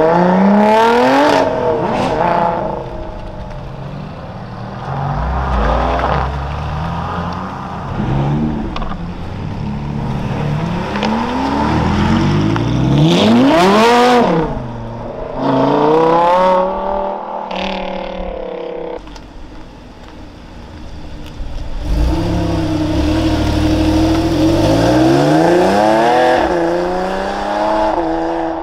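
Sports cars accelerating hard away one after another: a Lotus Exige, then an Audi R8, then a Porsche 911 Carrera 4S. Each engine revs up through the gears, rising in pitch, breaking off at each shift and fading as the car pulls away. The loudest pull, rising and then dropping in pitch, comes about halfway through.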